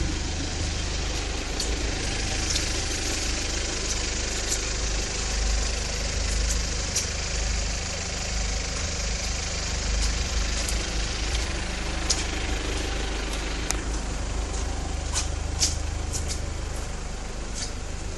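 2007 Mitsubishi Pajero SUV's engine idling steadily, with a few sharp clicks over the hum.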